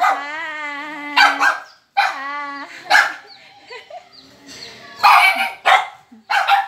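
Several small dogs barking in short sharp yaps, with two long wavering whines in the first three seconds and a quick run of barks about five seconds in.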